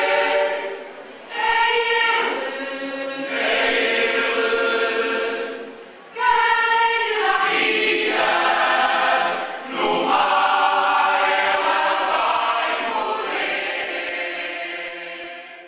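A choir singing in long phrases with brief pauses, fading out near the end.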